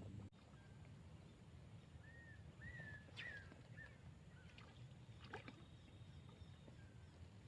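Near silence: faint outdoor ambience with a low hum, a short run of faint high chirps about two to four seconds in, and a few soft clicks.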